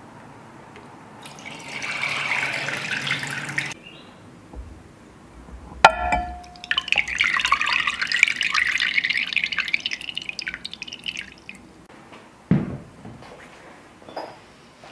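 Buttermilk poured from a stoneware butter churn into a ceramic colander, splashing for about two seconds. About halfway through comes a ceramic clink that rings briefly, then several seconds of buttermilk dripping and trickling through the colander's holes into the bowl below, and a dull thump near the end.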